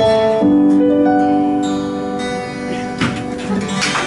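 The closing instrumental chords of a pop ballad, held notes with a plucked or keyboard tone that change chord a few times and grow softer. Short sharp noises join in near the end.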